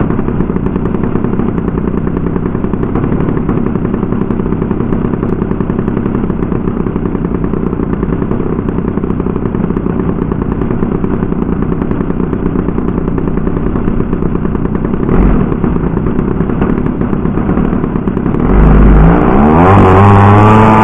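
DA50 two-stroke gasoline engine of a 25% scale RC Cub, heard from a camera on its nose, running at low throttle with a rapid pulsing beat. About 18 seconds in it revs up quickly to a high, steady full-throttle note for the takeoff roll.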